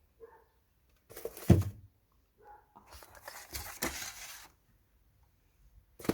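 Rustling and scraping noises, with a single thump about one and a half seconds in and a longer stretch of rustling from about three seconds in.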